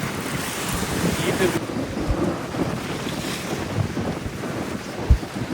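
Strong wind buffeting the microphone in irregular gusts over a steady rush of open-air noise, with one sharp wind thump about five seconds in.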